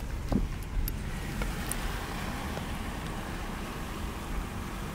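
Steady low roar of a nearby tornado and its winds, with a few faint ticks in the first couple of seconds.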